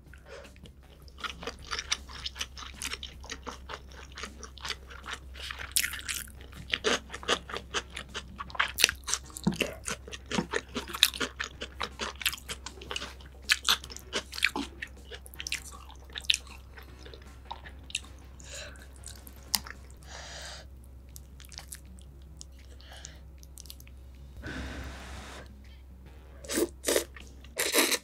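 Close-miked wet chewing of a bite of tuna nigiri sushi: many sharp mouth clicks and smacks, thinning out after about 17 seconds. Near the end loud slurping of ramen noodles starts, over a steady low hum.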